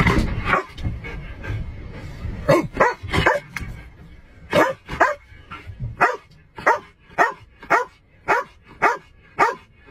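Police K9, a shepherd-type dog, barking in the caged back of a patrol car: a few barks about two and a half seconds in, then a steady run of evenly spaced barks, nearly two a second.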